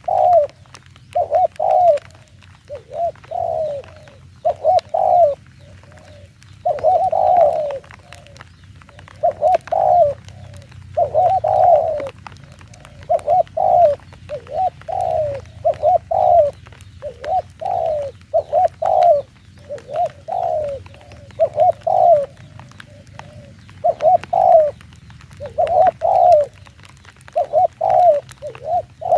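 Spotted doves cooing, a steady run of short phrases about once a second with only brief pauses.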